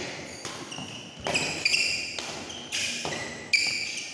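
Badminton rally: rackets striking the shuttlecock in quick exchange, about six sharp hits at roughly half-second to one-second spacing, each ringing briefly in the hall, the loudest near the end.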